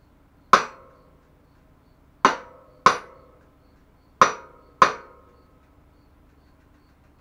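Five hammer blows on metal, each ringing briefly: a single strike, then two quick pairs.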